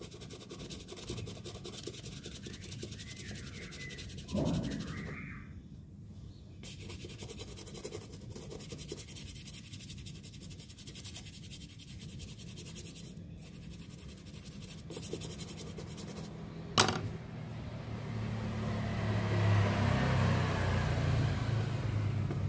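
A small brush scrubbing the tongue of a white football boot, with a cloth wiping it, fabric rubbing quietly at first and getting louder over the last few seconds. A single sharp tap comes about three-quarters of the way through.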